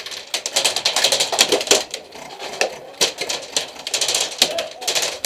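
Airsoft guns firing rapid strings of sharp cracks, several shots a second, with short gaps between strings.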